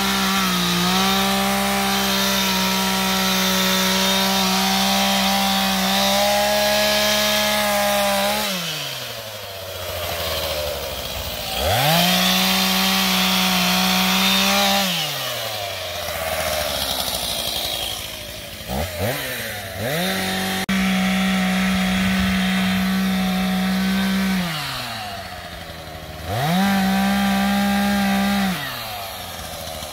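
Stihl MS 251 two-stroke chainsaw cutting branches. It is held at full throttle through long cuts and drops back to idle between them, four times over, with two quick blips of the throttle in the middle.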